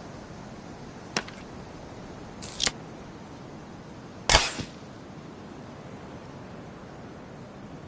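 Crossbow being readied and fired: a light click, then a short scrape ending in a sharper click, then the loud sharp snap of the shot, all over a steady hiss.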